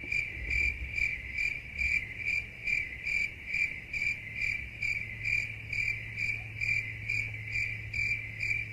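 Crickets chirping in an even, steady rhythm of about two chirps a second over a faint low hum. This is the stock 'crickets' meme sound effect, used to mark an awkward silence.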